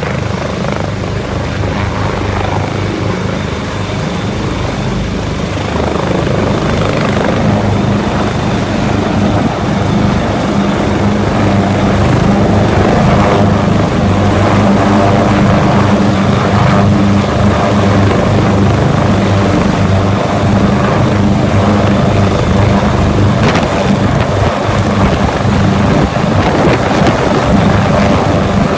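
Rescue helicopter approaching and hovering close by: the steady pulsing beat of the main rotor under a high, steady turbine whine, growing louder over the first ten seconds or so.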